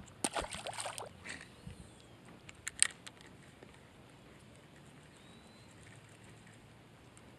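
A short splash and scuffle as a bluegill is released into the pond, followed a couple of seconds later by two sharp clicks, then quiet open-air background with faint high chirps.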